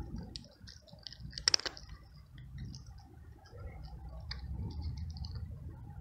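A young cat crunching dry kibble: a quick, uneven run of small clicks, with one louder crack about a second and a half in.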